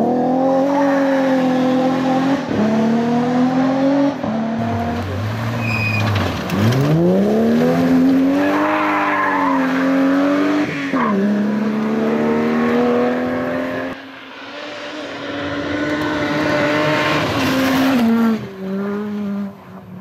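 Rally car engines at full throttle. The pitch climbs hard through the revs, then drops sharply at gear changes and braking, several times over, as the cars accelerate through the stage.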